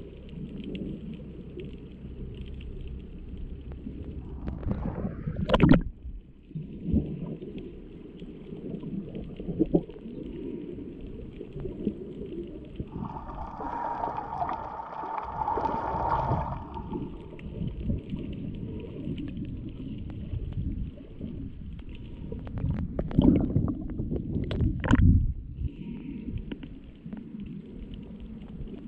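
Underwater sound from a submerged camera while snorkeling: a dull, low rush of moving water with a few knocks, two near 5 s and a cluster around 23–25 s. For about three seconds in the middle, a steady droning tone with overtones sounds through the water.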